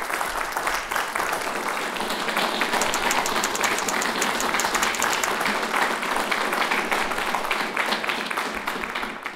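An audience applauding, many hands clapping in a steady, dense patter that cuts off suddenly near the end.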